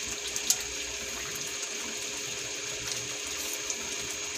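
Thick tomato-based menudo sauce simmering in a frying pan: a steady hiss with scattered small pops. A wooden spatula knocks against the pan once, sharply, about half a second in.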